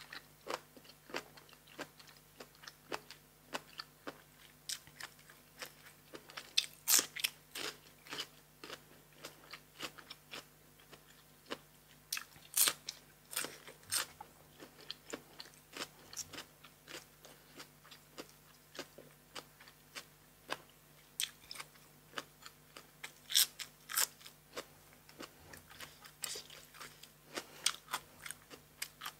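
A person chewing and biting crisp food close to the microphone, a meal of blanched cuttlefish and raw vegetables: a steady run of crunches and chewing, with louder crunchy bites about seven, thirteen and twenty-four seconds in.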